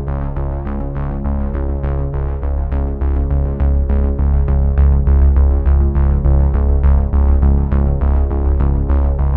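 Electronic background music: synthesizer notes over a steady beat and a sustained bass line.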